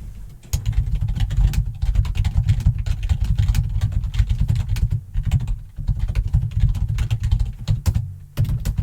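Loud, rapid typing on a computer keyboard, starting about half a second in, with a few brief pauses.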